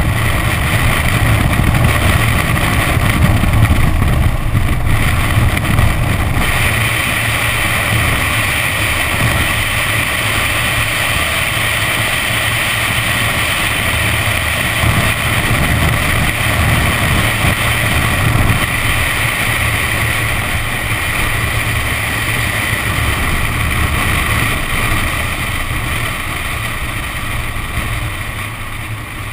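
Nissan 370Z's V6 running at speed on a soaked track, with the hiss of its tyres throwing up water spray and wind buffeting a microphone mounted on the outside of the car. The hiss grows louder about six seconds in.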